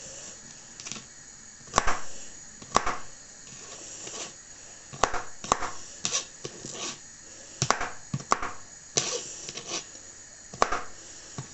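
Kitchen knife chopping vegetables on a chopping board: sharp, separate knocks at an uneven pace, about a dozen of them.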